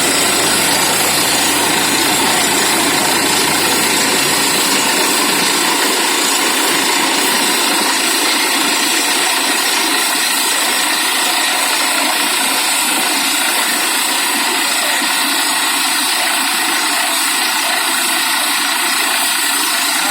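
Borewell drilling rig running, a loud, steady mechanical din; its lowest rumble thins out after about six seconds.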